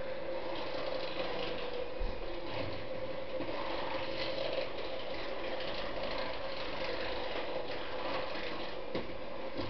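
Red squirrel gnawing at a walnut shell: rapid fine scraping clicks, over a steady low hum, with a single thump about two seconds in.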